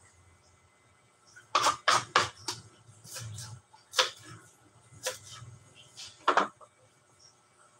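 Kitchen knife chopping vegetables on a plastic cutting board: six or seven sharp, irregular knocks, three close together about a second and a half in, then single ones about four, five and six seconds in.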